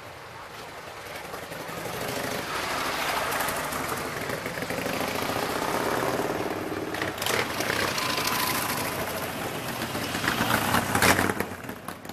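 Harley-Davidson V-twin motorcycle riding past, its engine note building for a few seconds, loudest about six seconds in, then fading. A short, louder burst of noise comes near the end.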